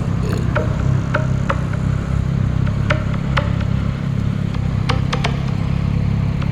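Yamaha Tracer 9 GT motorcycle's inline-three engine running steadily with a low, even note through its standard exhaust. Scattered sharp clicks sound over it.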